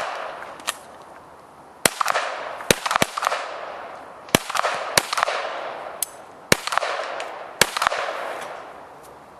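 Pistol shots from several shooters firing at once in a timed string: about a dozen sharp reports at uneven intervals, each followed by an echo that dies away over about a second.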